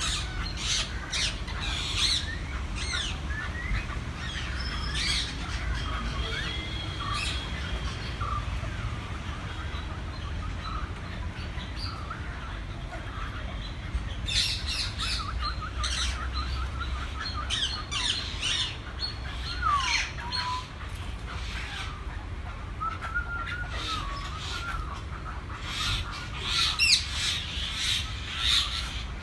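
Birds in zoo aviaries calling: many short, sharp squawks and chirps, some overlapping, coming in clusters at the start, in the middle and near the end, over a steady low rumble.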